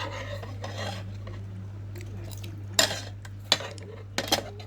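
Metal spoon and fork clinking against a bowl while scooping up noodles and broth: a few sharp clinks, one at the start and the rest in the second half, over a steady low hum.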